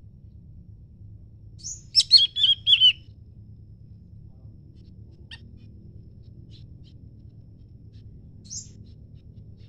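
Small songbird calling: a quick burst of high chirps about two seconds in, a few faint chips, then one short high note near the end.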